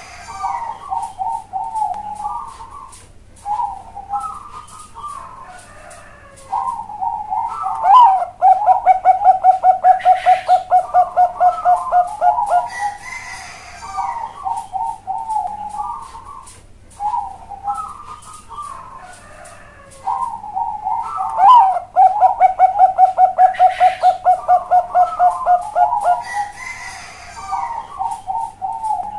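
Zebra dove (Bangkok-line perkutut) song: deep cooing phrases, each building into a loud run of rapid pulsing coos lasting about four seconds. The cycle goes through twice.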